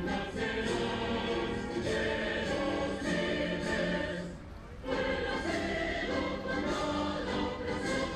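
Choir singing held chords as part of a piece of music, with a short drop in level about four and a half seconds in.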